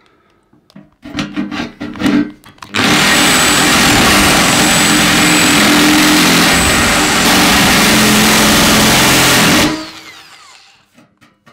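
Electric drill running with a metal drill bit worked around inside a drilled hole in a steel ammo can, reaming the hole wider. About 7 s of loud grinding with a thin high whine, starting nearly three seconds in and cutting off sharply near the end. Before it come a few short knocks and rattles of the metal case.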